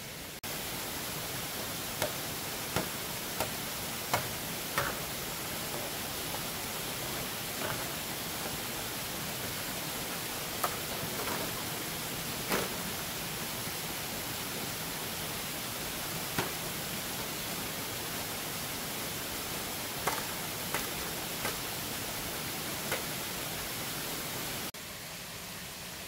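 Steady rushing of a waterfall, with about a dozen short sharp clicks and knocks scattered through it; the rush starts abruptly just after the start and cuts off sharply near the end.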